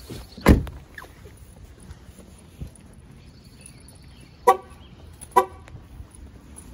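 A heavy thump about half a second in, then two short car horn honks just under a second apart.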